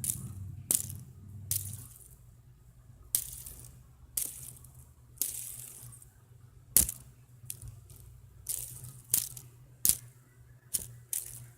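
Irregular sharp clicks and clacks of small hard plastic objects being handled and knocked together, about fifteen in all, over a low steady hum.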